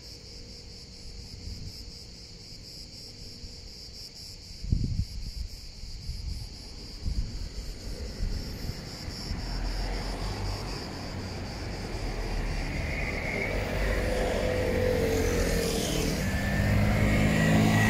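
Insects chirring steadily in a high, pulsing band, with two knocks about five and seven seconds in; over the second half a low rumble builds and grows louder, covering the insects.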